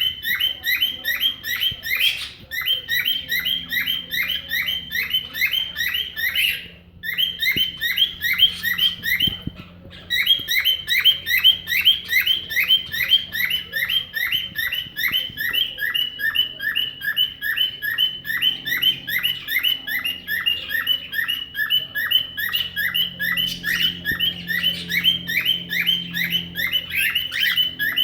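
Cockatiel imitating a car alarm: a rapid, steady string of short rising whistles, several a second, going on and on. It breaks off briefly about 7 seconds in and again around 10 seconds.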